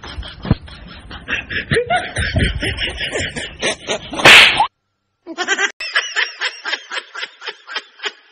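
Rapid, high-pitched snickering laughter in quick even pulses, cut by one loud slap about four seconds in; after a brief silence the snickering starts again.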